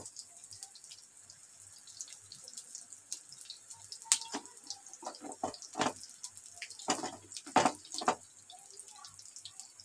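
Gram-flour fritters (bhajiye) deep-frying in hot oil: a steady sizzle with scattered crackling pops, a few louder ones in the second half.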